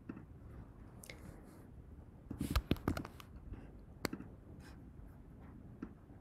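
A few faint clicks and small knocks over quiet room noise: a cluster between about two and three seconds in, then a single sharp click about four seconds in.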